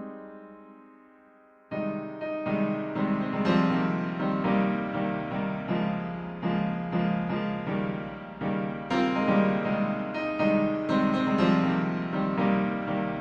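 Piano music: a chord struck at the start fades away, then a flowing passage of notes begins about two seconds in and carries on.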